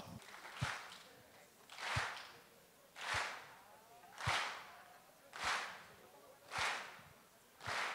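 Finger snaps and hand claps from a hall audience keeping a slow, steady beat. There are seven in all, about one a second, each with a short echoing tail.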